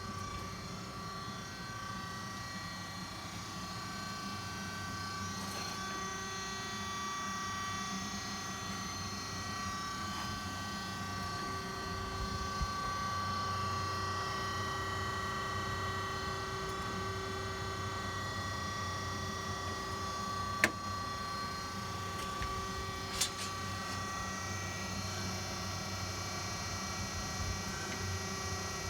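DoAll D6-1 surface grinder running under its own hydraulics, a steady hum with a whine over it. Two sharp clicks come about two-thirds of the way in, a few seconds apart.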